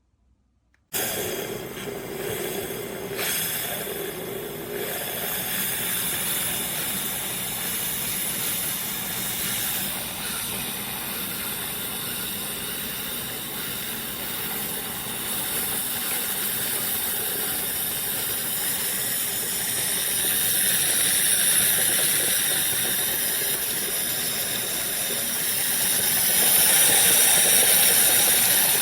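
Hamilton Beach FlexBrew Trio coffee maker brewing: a steady steaming hiss that starts abruptly about a second in and grows a little louder near the end.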